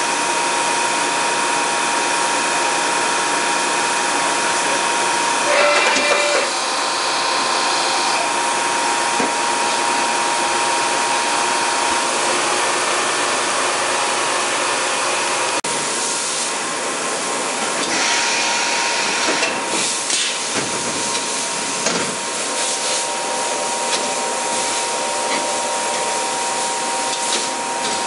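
Matsuura MAM-600HF-PC-2 CNC horizontal machining center running under power: a steady hiss and hum with a constant tone. A brief louder whine comes about six seconds in, and scattered clicks and knocks come in the last ten seconds as the machine moves.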